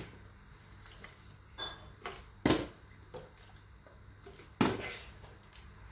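Small plastic water bottle with some water in it knocking against a tile floor during bottle-flip attempts: three short sharp knocks a second or two apart, the last two loudest.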